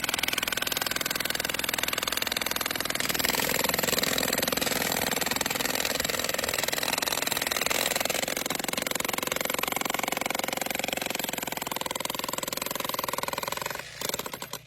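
Jackhammers hammering rapidly and continuously into shale, then shutting off with a brief sputter near the end.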